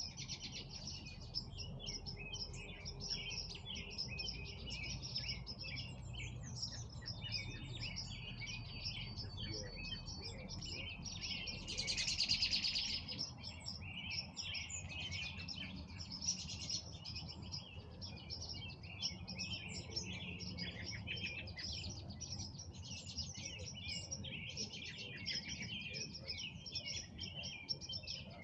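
Many songbirds chirping and singing at once in a dense spring evening chorus, with one louder, closer burst of calls about twelve seconds in. A faint low rumble runs underneath.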